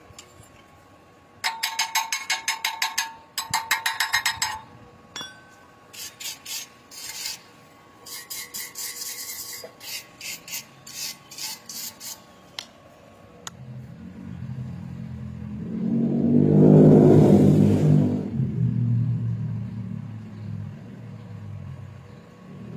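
Runs of quick rasping, scraping strokes, about five a second, stopping and starting several times. Then an engine rumble swells to its loudest about three-quarters of the way through and fades away.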